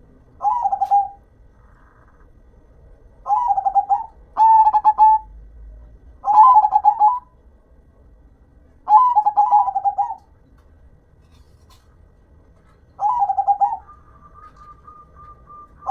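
Zebra dove (perkutut) singing: six short trilled cooing phrases, each under a second and repeated every few seconds. A faint steady tone is heard near the end.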